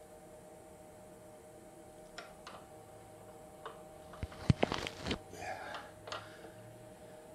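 Light clicks and knocks at the CNC router's mount as its tilt is adjusted by hand during tramming: a few faint single clicks, then a quick cluster of sharper ones about four to five seconds in, over a faint steady hum.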